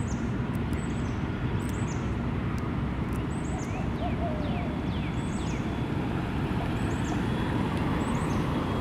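Steady rumble of road traffic, with small birds chirping over it in short, high calls that fall in pitch, coming in scattered clusters.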